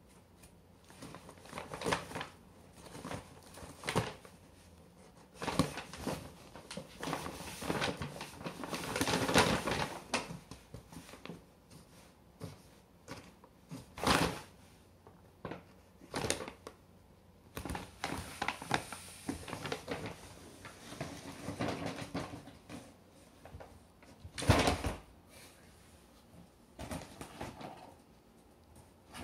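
Paper shopping bag rustling and crinkling in irregular bursts as a cat moves and paws about inside it, with sharp knocks against the paper and one heavier thump late on.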